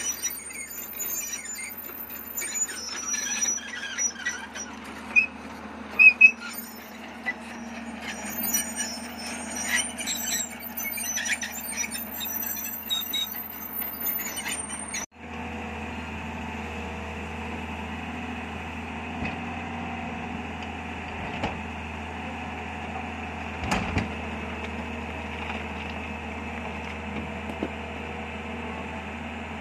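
High-pitched squeaks and scattered clicks over a low engine hum. Then, after a sudden break, a Tata Hitachi excavator's diesel engine runs steadily, with a single knock about two-thirds of the way through.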